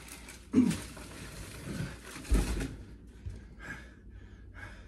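Two dull thumps about half a second and two and a half seconds in, with rustling between, as a person shifts his weight on a mattress and climbs down to the floor.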